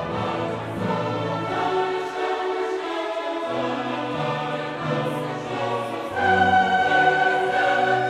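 Background music in an orchestral and choral style, with long held sung and string notes, swelling louder about six seconds in.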